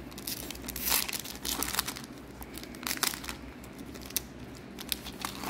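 Foil wrapper of a Score football card pack crinkling and tearing as it is ripped open and the cards are pulled out, in irregular crackly bursts, the loudest about a second in.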